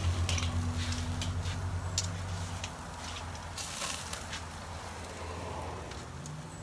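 Metal grill tongs clicking against clam shells and the grill grate, a few sharp clicks, over a low steady hum that fades out about two and a half seconds in.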